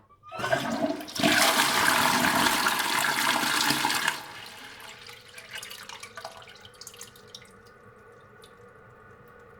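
Close-miked toilet flushing: a loud rush of water lasting about three seconds that drops off suddenly, then gurgling as the bowl drains and a steady quieter hiss as the cistern begins to refill.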